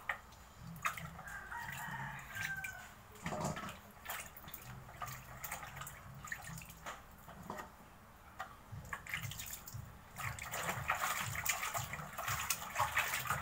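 Hands swishing and rubbing yardlong beans in a plastic basin of water, with splashes and drips. The sloshing grows louder and busier about ten seconds in.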